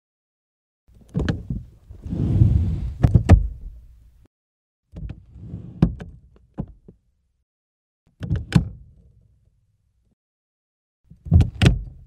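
Car door sounds: five short, separate takes, each a sharp latch click and a heavy thump as a door is opened or shut, with dead silence between them. The loudest take comes about two to three seconds in.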